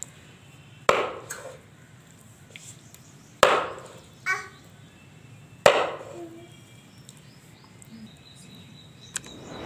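Kitchen knife chopping raw chicken on a wooden block: three sharp chops about two and a half seconds apart.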